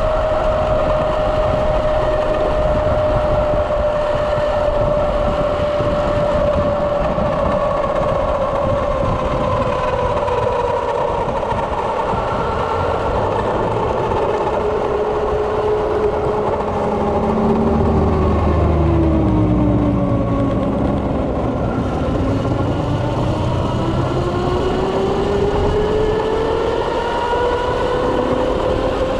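Electric-converted Kawasaki KLX's drive motor whining under riding wind and road noise. The pitch slides down as the bike slows, then climbs again as it speeds back up near the end. A deeper rumble joins for a few seconds about two-thirds through.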